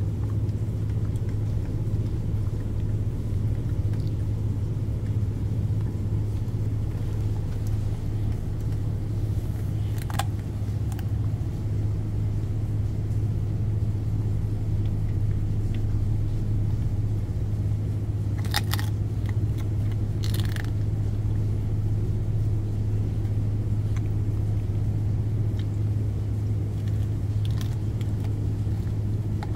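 Steady low drone of a ship's engine machinery, running evenly throughout. A few short clicks of a dog chewing on food come about ten seconds in and twice a little past halfway.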